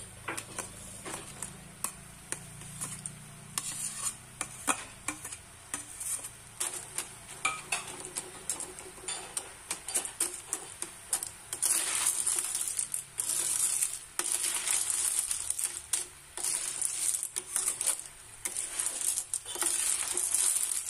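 A metal spatula stirs river snails in their shells together with boiled potato in a steel kadai. It makes repeated clinks and scrapes against the pan and the shells, over a sizzle that swells in bursts from about halfway through.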